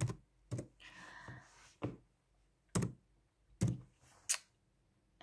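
A few soft, separate taps and knocks, about five spaced roughly a second apart, with a short faint rustle about a second in.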